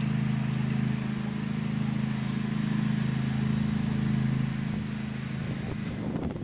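A motor vehicle's engine running with a steady low hum, which fades away near the end.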